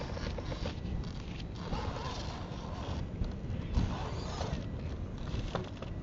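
SCX10 1/10-scale electric RC rock crawler's motor and gears running under load as it crawls up a rock face, with tyres scrabbling on stone and wind rumbling on the microphone.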